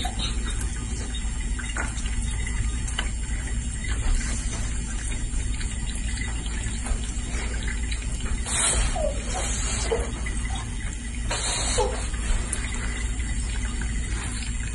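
Kitchen faucet running steadily, its stream splashing onto a cat's head and into the sink. A few short, faint squeaky sounds come through around the middle.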